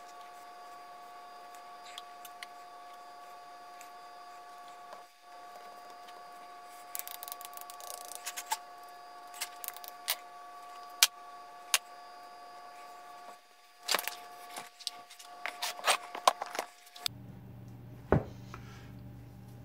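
Scattered clicks and short scrapes of a small hand tool working a PetroBond sand mould around its sprue pins, over a steady high hum. The clicks and scrapes come thickest in the second half. Near the end the hum changes abruptly to a lower one, with a single sharp click.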